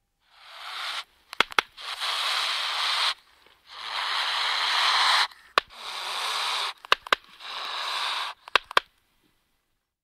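Five swelling, hissing whooshes, each about a second long and cut off abruptly, with sharp clicks between them.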